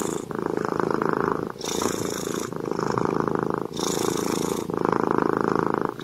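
Domestic cat purring steadily while being scratched under the chin, the purr running in rhythmic in-and-out phases of about a second each with brief breaks between them.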